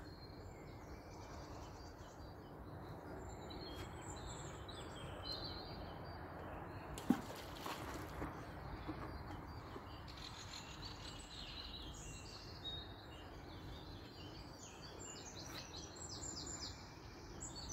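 Small birds singing and chirping over a steady outdoor background hiss, with one sharp knock about seven seconds in.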